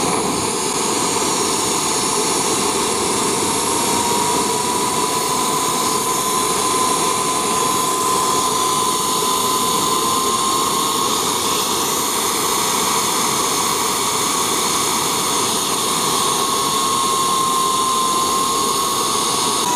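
Homemade turbojet engine running at high revs, a steady loud rush with a clear whine that edges up in pitch over the first half. Kerosene is being added to its propane fuel and the revs are climbing from about 45,000 rpm.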